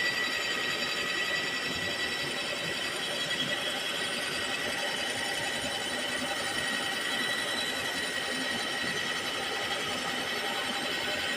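Milling machine running steadily while grinding the edge of a blade: a continuous high whine over a grinding hiss.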